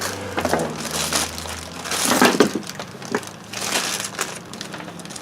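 Packaging being handled during unboxing: irregular crinkling and rustling of plastic wrap and packing material, busiest about two seconds in.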